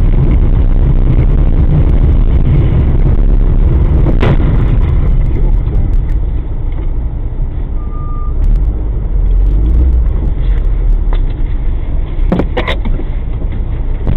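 Steady low rumble of a moving car's road and engine noise, heard from inside the cabin through a dashcam microphone. A few sharp knocks come about four seconds in and again near the end, and a short single beep about eight seconds in.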